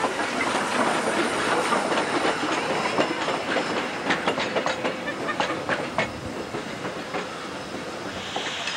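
Pere Marquette 1225, a 2-8-4 Berkshire steam locomotive, rolling past with many sharp clanks and clicks from its running gear and wheels over rail joints, and a hiss of steam. The sound grows fainter over the last few seconds as the tender goes by.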